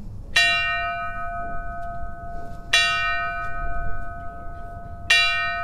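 A bell is struck three times, about two and a half seconds apart, each stroke ringing on under the next. It is tolled in honour of a fallen officer whose name has just been read.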